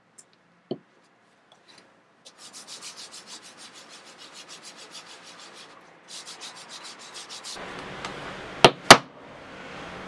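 A pad rubbing leather finish over a leather panel in quick back-and-forth strokes, about four or five a second, after a light knock. Near the end, two sharp, loud clicks close together.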